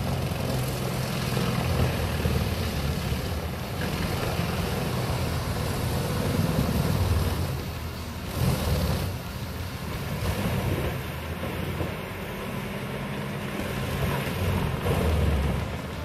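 Vermeer HG6800TX tracked horizontal grinder running under load as logs are fed into it: a heavy diesel drone with the grind of wood over it, swelling and easing as the logs go through.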